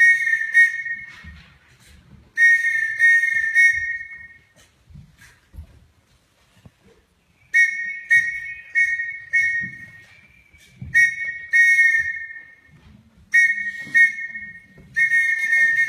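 A pea whistle blown in a sequence of short and longer blasts with pauses between groups, sending Morse code letters.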